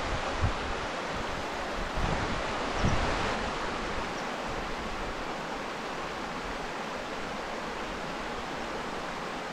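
Shallow stream running over stones, a steady rushing. Wind buffets the microphone with low rumbles in the first few seconds.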